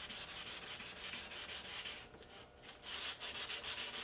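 320-grit sandpaper rubbed by hand over filler putty on a plastic model's saucer, in quick, even back-and-forth strokes with a brief pause just past halfway. This is the second, finer sanding pass that takes the coarse 180-grit scratches out of the putty to blend the filled seam.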